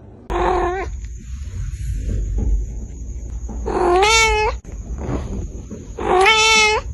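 A cat meowing three times: a short call, then two long drawn-out calls, each rising in pitch and then held. A low rumbling noise runs underneath.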